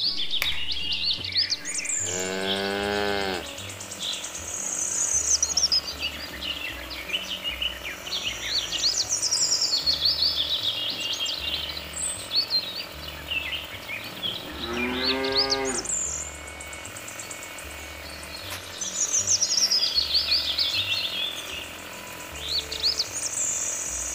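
Two cow moos, one about two seconds in and a second around fifteen seconds in, over continuous birds chirping and twittering.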